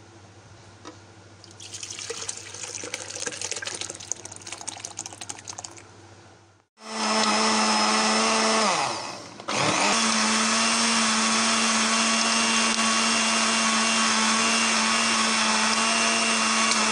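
Electric blender grinding cooked, stoned plums in their liquid. The motor starts about seven seconds in, winds down and stops briefly, then restarts and runs steadily. Before it there are quieter liquid and handling sounds.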